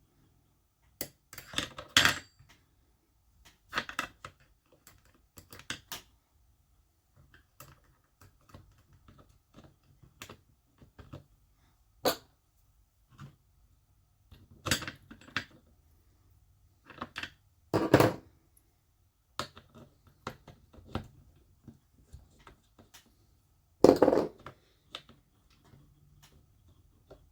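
Irregular clicks and short clatters of small plastic and metal RC car parts being handled on a workbench as a front diff and its bearing shims are test-fitted, with a few louder clatters scattered through.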